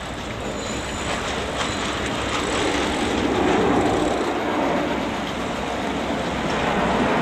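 Wind buffeting the microphone over choppy water, a steady rushing noise that swells about three to four seconds in and again near the end.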